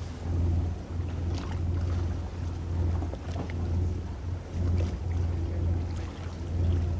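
Low rumble of wind buffeting the microphone, swelling and easing about once a second, with a few faint ticks.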